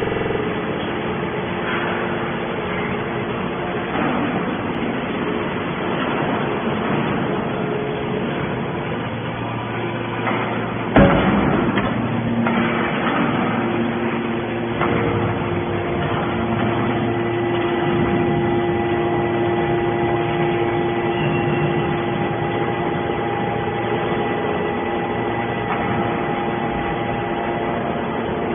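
Hydraulic scrap metal baler running: the steady hum and whine of its hydraulic power unit, with a single sharp bang about eleven seconds in and a steadier whine setting in a few seconds later.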